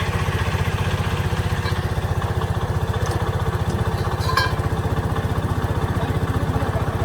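Engine running steadily with an even, fast pulse. A short metallic clink rings out about four seconds in.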